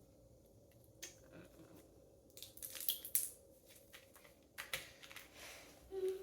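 Homemade slime being worked by hand, giving short clusters of crackling and popping, with quiet stretches in between.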